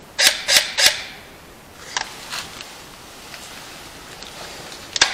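Camera shutter clicking three times in quick succession, followed by a few fainter clicks and one more sharp click near the end as the camera is worked.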